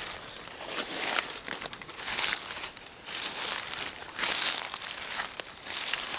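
Footsteps pushing through thick, dry grass and brush, with repeated rustling swishes of stalks against legs and clothing, about one every second.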